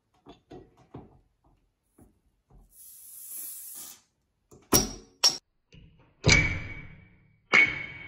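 A series of sharp knocks and hits: faint small clicks at first, two sharp knocks about halfway, then two louder hits near the end, each followed by a short ringing tone, with a brief high hiss before the knocks.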